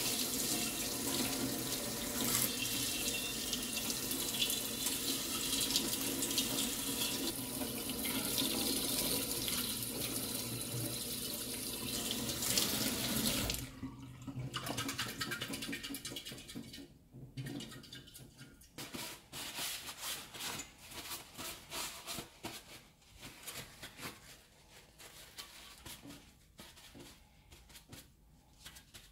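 Kitchen tap running onto a long metal gas-fire part held over a stainless steel sink, a steady rush and splash of water. About halfway through the tap is shut off and the water stops suddenly, leaving faint, scattered clicks and rustling as the wet part is handled and wiped with a paper towel.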